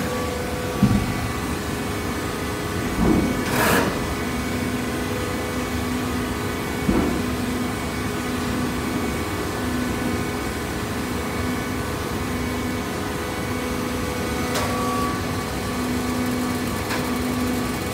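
Machine running with a steady hum and a few short knocks or clanks, the sound of a hydraulic waste paper baler at work.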